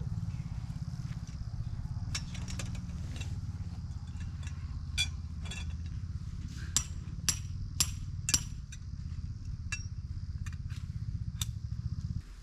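A scattering of sharp metallic clinks and taps, a few with a short ringing tone, from metal tarp-pitching gear being handled and struck. They sit over a steady low rumble that cuts off abruptly near the end.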